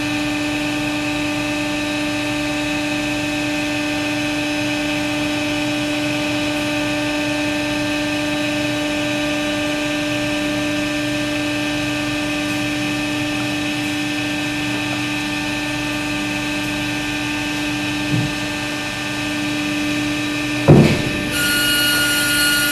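Steady machine drone with a constant hum as the AWS58 quarantine waste steriliser's chamber door closes automatically at the start of its treatment cycle. A small knock and then a loud clunk come near the end.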